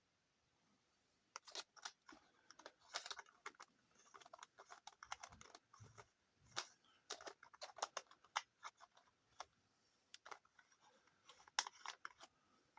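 Faint, irregular clicks and taps of small hard parts being handled and fitted, with no machine running.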